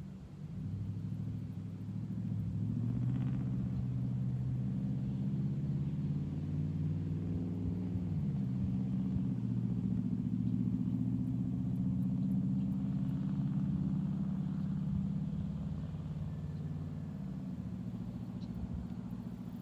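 A motor vehicle's engine running, its pitch rising slightly and then dropping about eight seconds in, fading near the end.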